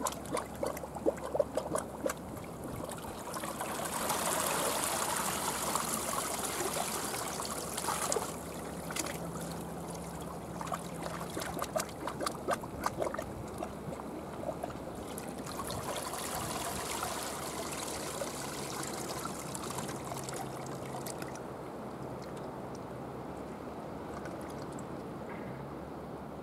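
Seawater washing and lapping at the shore, swelling louder twice, with scattered small splashes and clicks.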